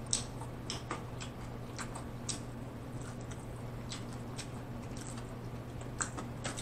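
Close-miked mouth sounds of a person chewing food: small wet smacks and clicks at an irregular pace, over a steady low electrical hum.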